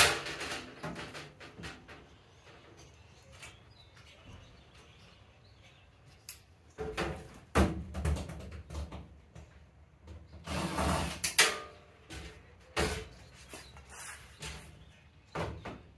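Metal drawer slides of a Husky tool chest being pulled out and pushed back, giving scattered clicks and knocks and short sliding rasps, one of them longer, about a second, a little past the middle.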